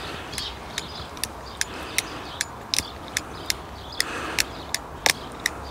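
Ratchet cable cutter clicking in a steady rhythm, about two to three clicks a second, as its handle is pumped to cut through 16 mm three-core steel-wire-armoured cable.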